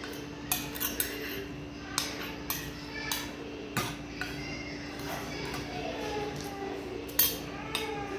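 Metal spoon clinking and scraping against a ceramic plate as rice is scooped up: several short, sharp clinks, the loudest near the end.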